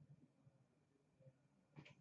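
Near silence: room tone, with a brief faint rustle of a trading card being handled near the end.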